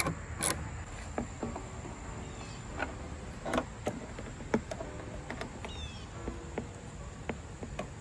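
Ratchet wrench clicking in a few strokes about half a second apart as a pod light's mounting bolt is tightened. It is followed by scattered light clicks and knocks of hands working a pod light and its metal mounting bracket.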